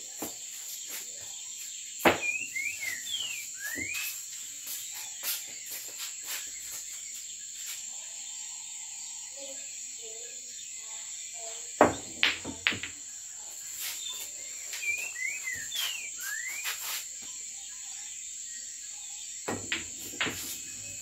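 Pool balls clacking in three separate shots: a cue strikes the cue ball, followed by quick knocks of ball on ball and cushion. The clacks sound over a steady, high-pitched chirring of crickets.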